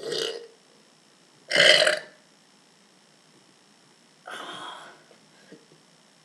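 A person burping three times: a short burp at the start, the loudest one about a second and a half in, and a longer, weaker one about four seconds in.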